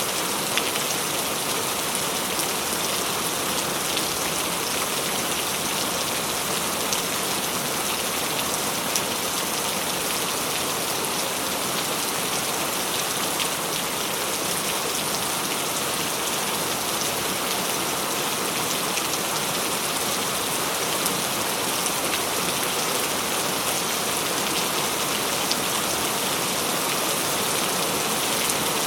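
Steady rainfall, an even hiss with scattered sharper ticks of single drops striking a surface.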